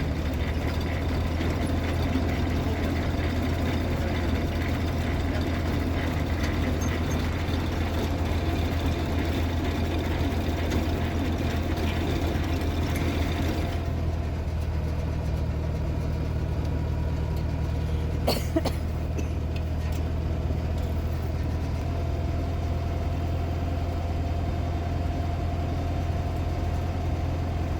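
An engine running steadily at idle, with a constant low hum. The higher-pitched mechanical noise over it drops away about halfway through, and a single sharp knock comes near the end.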